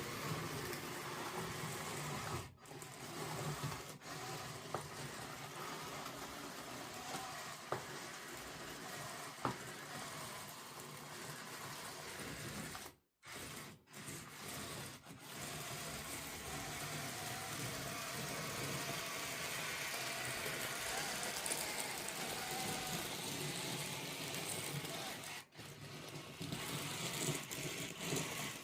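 Small electric motors and gearboxes of a 1:50 scale RC excavator and loader whirring steadily, with sand scraping and pouring, cut off completely a few times and marked by two sharp clicks in the middle.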